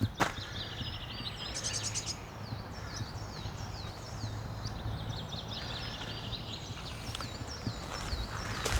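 Songbirds singing: a run of short, high, curving whistled notes repeated throughout, with a fast trill about two seconds in. Under it runs a steady low hum from the camera phone's bracket vibrating, and there is a footstep near the start and another at the end.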